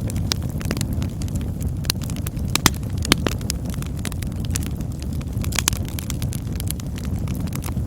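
Campfire burning: a steady low rumble with frequent crackles and sharp pops of burning wood, the loudest two pops about two and a half and three seconds in.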